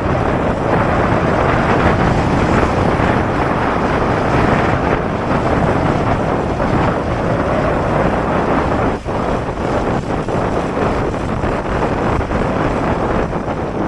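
Steady rushing of wind on the microphone, with a brief dip about nine seconds in.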